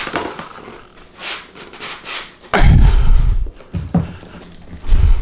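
Cardboard packaging being handled: rustling and scraping as a boxed speaker is turned over and pulled open, with heavy low thumps of the box knocking about halfway through and again near the end.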